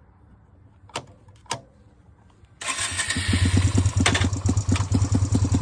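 Two sharp clicks, then a Yamaha motorcycle engine starting and running loudly with a rapid, even beat of about seven or eight pulses a second.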